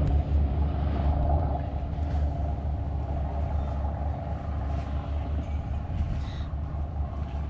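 Steady low rumble of open-air ambience.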